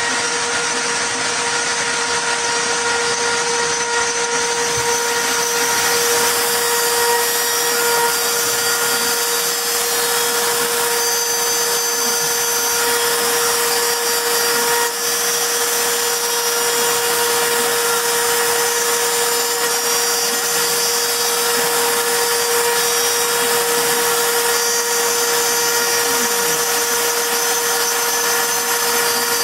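CNC router spindle running steadily while engraving wood: a constant motor whine with a strong steady hum tone and a dense hiss of cutting over it.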